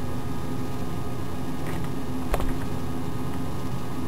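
Steady indoor machine hum, like a fan or air conditioner, with a single short click a little over two seconds in.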